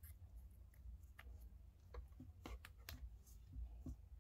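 Near silence with a handful of faint, sharp clicks and taps: a USB-C charging cable being handled and pushed into the phone's port.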